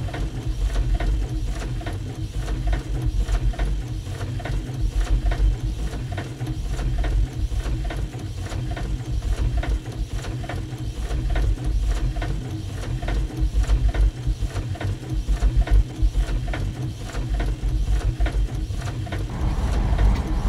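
Printing-press machinery running, its sounds repeated and layered into an experimental composition: fast, even mechanical strokes over a heavy pulsing low thump. Near the end a hiss rises over it.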